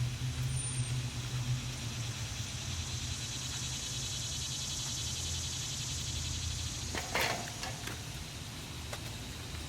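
A steady low hum, with a short rustling rub about seven seconds in as the new inner tube is worked into the bicycle tyre by hand.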